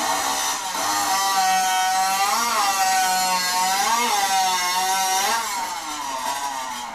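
Modified competition chainsaw running flat out while cutting through a log, its high engine whine dipping in pitch three times as the chain loads up in the wood.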